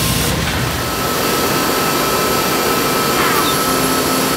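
Steady rushing noise of machinery running in a woodworking shop, with a faint steady whine above it.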